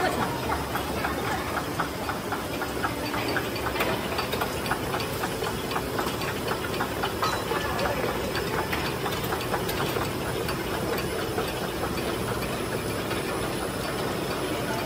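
Rotary bouillon-cube pressing machine and its outfeed conveyor running: a steady, dense mechanical clatter of rapid fine ticks over an even hiss.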